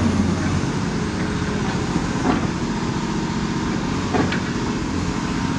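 Caterpillar 336E hydraulic excavator's diesel engine running under load as its sorting grab works at a building's roof, with a few short, faint knocks of breaking material about two and four seconds in.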